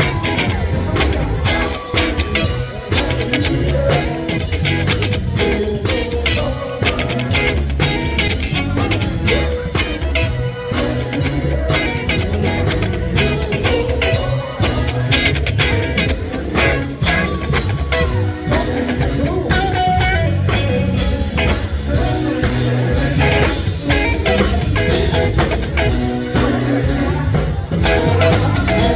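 Live funk band playing loudly with a steady beat and heavy bass.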